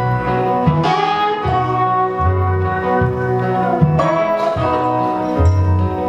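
Live band playing an instrumental break between sung lines: guitars over plucked upright bass notes that change about every second.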